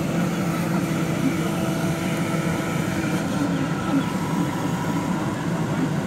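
JCB 3DX backhoe loader's diesel engine running steadily under the work of the backhoe arm as it digs soil.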